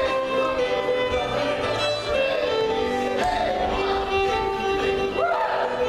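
A fiddle playing a contra dance tune with accompaniment underneath, a sliding note about five seconds in.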